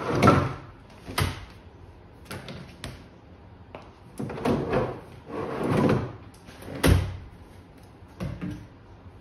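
Two aluminium-framed folding camping chairs being slid out of a vacuum-formed plastic chair pod on a van's tailgate and set down on a concrete floor. It is a series of scrapes, clatters and knocks, loudest at the very start, with a sharp knock about seven seconds in.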